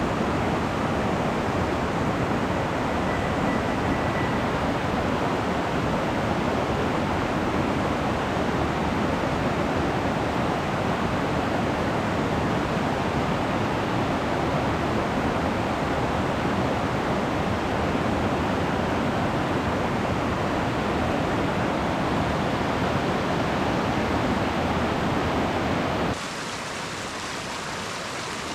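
Steady rush of fast-flowing mountain stream water. About 26 seconds in it cuts abruptly to a quieter, thinner rush of water.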